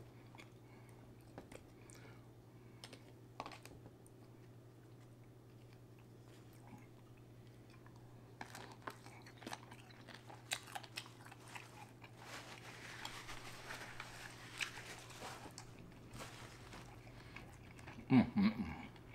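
Faint close-miked eating sounds of a man eating seafood: chewing, biting and small wet clicks, busier from about eight to sixteen seconds in, over a steady low hum. A short voiced sound comes near the end.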